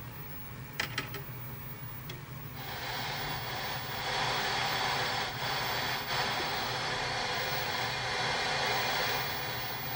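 Static hiss from a Montgomery Ward JSA 12120 portable TV's speaker, tuned to UHF with no station coming in. A few clicks come about a second in, then the hiss swells up about two and a half seconds in and holds steady.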